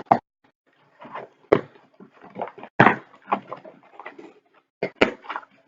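Cardboard box and packaging being opened by hand: a run of irregular crinkles, tears and knocks.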